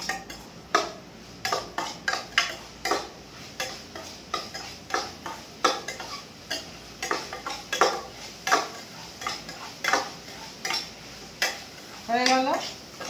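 Metal spoon stirring and scraping food in a small stainless-steel pot, clinking against the pan about once or twice a second.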